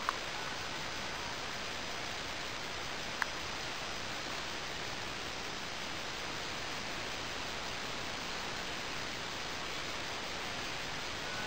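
Steady, even hiss of background noise, with a single sharp click about three seconds in.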